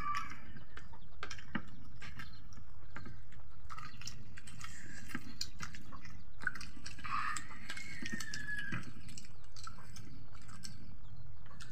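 Eating by hand: fingers mixing rice and curry on plates, with wet smacking and chewing clicks scattered throughout. A brief high gliding call is heard about seven seconds in.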